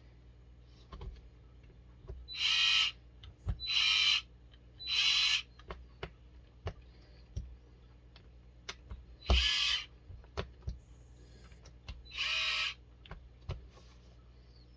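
Small electric screwdriver whirring in five short bursts, driving screws into plastic RC truck wheels, with light clicks of parts being handled between the bursts.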